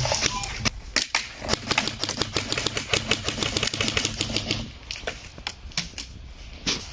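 Airsoft guns firing, a fast irregular clatter of sharp clicks that thins out about two-thirds of the way through.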